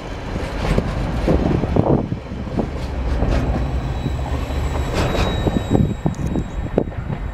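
Freight train of container flat wagons rolling past close by, a steady rumble from the wheels with irregular sharp knocks as they pass over rail joints. The last wagon goes by about halfway through and the rumble carries on as the train draws away.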